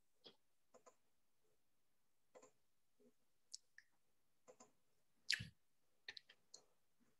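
Faint, scattered clicks and taps of a computer mouse and keyboard, with one louder thump about five seconds in.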